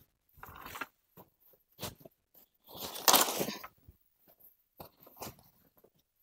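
Scattered crunching and rustling of dry leaf litter and twigs under footsteps and handling, with one longer, louder crunching rustle about three seconds in.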